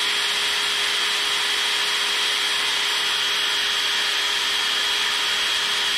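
Cordless drill running steadily, boring a hole through a fiberglass rebar stake under light pressure, with a steady high whine over the grinding of the bit.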